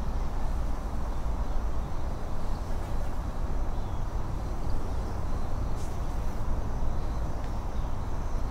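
Steady low rumbling noise of wind on the microphone, with a faint, steady high-pitched whine above it.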